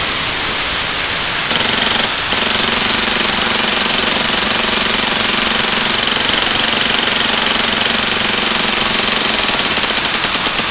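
Compressed air hissing loudly from a large leak in an airsoft EPAR electro-pneumatic conversion. From about a second and a half in, the timer-pulsed air valve and gearbox start cycling rapidly, adding a fast, even, buzzing rattle over the hiss.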